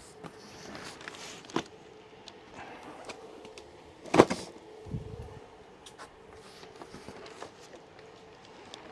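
Cardboard model kit boxes being handled and stacked: scattered light taps and rustles, with one sharp knock about four seconds in followed by a dull thud, over a faint steady hum.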